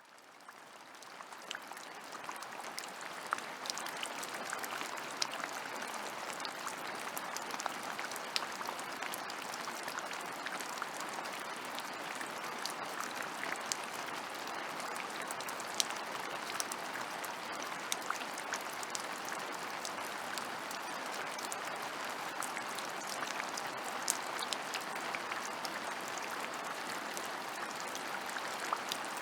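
Steady rain falling, a dense even hiss with many separate drops ticking sharply on nearby surfaces. It fades in over the first second or two.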